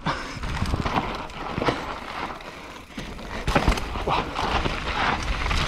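Mountain bike rolling over a rough dirt trail: tyres on loose ground, with scattered clicks and knocks from the frame and chain, and wind rumbling on the helmet-mounted camera. It gets louder about three and a half seconds in.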